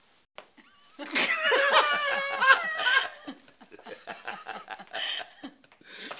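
A man and a woman laughing together. The laughter starts about a second in, is loudest for the next two seconds, then trails off into softer chuckles.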